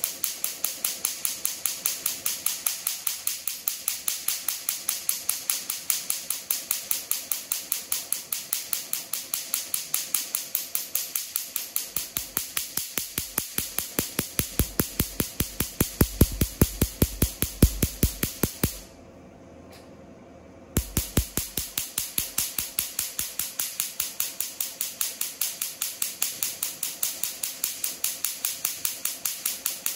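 Tattoo-removal laser firing rapid pulses into a wrist tattoo, a sharp snap about five times a second. It stops for about two seconds some two-thirds of the way through, then resumes.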